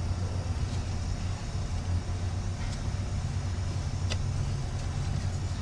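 Steady low background hum, with a faint click about two and a half seconds in and another about four seconds in.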